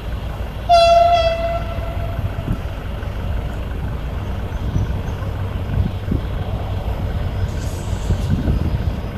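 Diesel locomotive horn sounding one blast about a second in, a single clear note that fades away over the next second and a half. Under it a steady low rumble.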